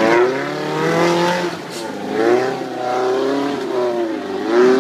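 Small off-road 4x4's engine revving hard under load as it climbs a muddy trail, its pitch rising and falling repeatedly as the throttle is worked.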